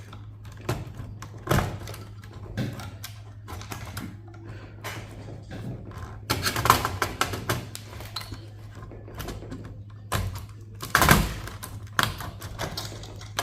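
Irregular clicks, taps and clatter of server hardware being handled and picked through, with a few louder knocks, over a steady low hum.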